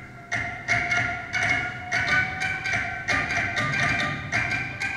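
Hand-built percussion instrument, a long tube studded with cable-tie pins, sounding a steady run of struck notes, about three a second, each with a bright ringing tone that fades before the next strike.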